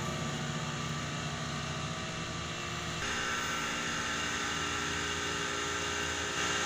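Steady outdoor background noise, an even hiss over a low rumble, getting brighter about three seconds in.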